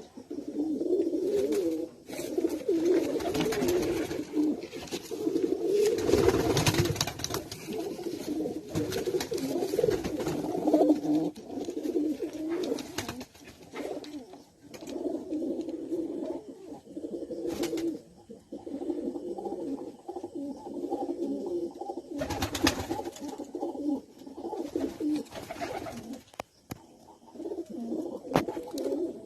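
Giribaz pigeons cooing, low warbling coos in near-continuous phrases with short pauses. A few brief, sharper noises break in, around a quarter of the way through and again after the middle.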